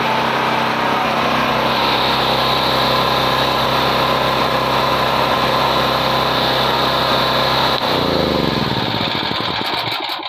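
Predator portable gasoline generator engine running at a steady speed, then shut off about eight seconds in, its pitch falling as it winds down to a stop.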